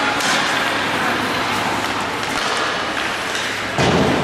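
Ice hockey play in a rink: skate blades scraping the ice and sticks clacking over a steady rink din, with a heavy thud near the end.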